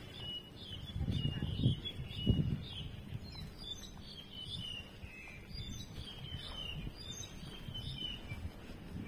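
Birds chirping: many short, high calls repeating throughout, with a few low rumbles in the first couple of seconds.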